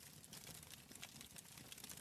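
Wood fire crackling in a fireplace, with many small, irregular pops and snaps over a soft hiss, faint.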